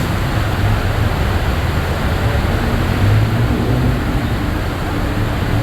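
Steady rain falling over a city road, with traffic running beneath it: a low engine hum under the even hiss of the rain.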